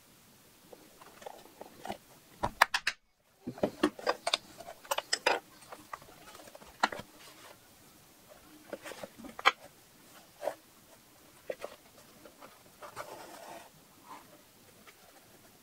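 Hand work on a leather bag: scattered clicks, taps and rubbing as the leather, a small hand tool and waxed thread are handled. The sounds are busiest in the first five seconds or so and are broken by a brief dead gap about three seconds in.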